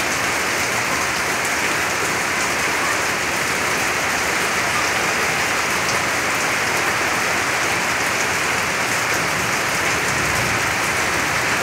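Heavy rain pouring down steadily, an even hiss that holds at the same strength with no let-up and no thunder.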